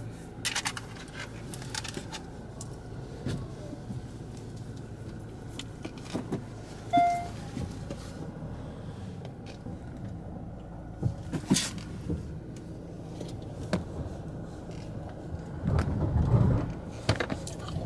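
Steady low rumble of a car cabin, with scattered clicks and knocks of handling and one short electronic beep about halfway through.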